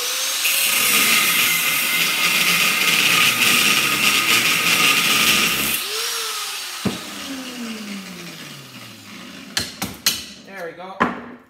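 Small handheld electric grinder spinning up and cutting into the welded steel case of a transformer: a steady high whine over loud grinding noise. About six seconds in it is switched off and winds down in a falling whine. Near the end come a few sharp hammer strikes on a pry bar.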